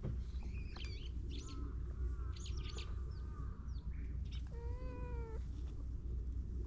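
A cat gives one drawn-out meow, just under a second long, about four and a half seconds in, over a steady low rumble. Several short high chirps come before it.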